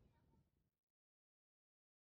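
Near silence: a faint tail fading out, then dead digital silence.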